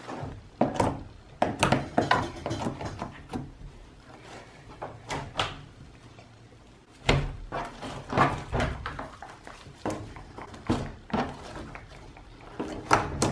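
Freshly made glitter slime being kneaded and stretched by hand, giving irregular sticky clicks and pops, with a spell of heavier handling about seven seconds in.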